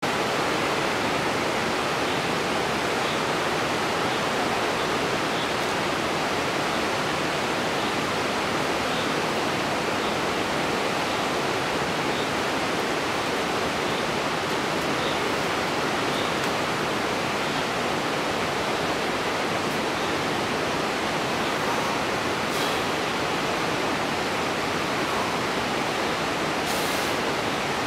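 Steady rushing of flowing water, as of a nearby mountain stream, even and unbroken throughout.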